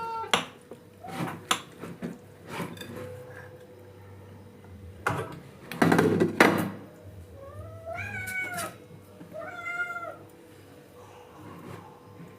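Domestic cat meowing twice, about eight and nine and a half seconds in, begging while its food is being prepared. Earlier come a few sharp knocks and clatters, the loudest about five to six seconds in.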